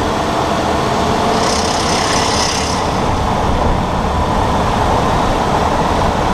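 2018 Ford F-150's running gear heard up close, a loud steady mechanical noise with a brief hiss about a second and a half in. This is the grinding that the owner suspects comes from the integrated wheel end (IWE) hubs that engage 4WD.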